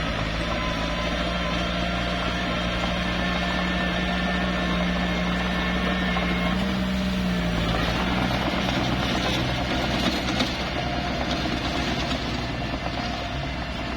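Small bulldozer's diesel engine running steadily, its pitch rising slightly about six seconds in and dropping back a second later. From about eight seconds in the sound turns rougher and noisier.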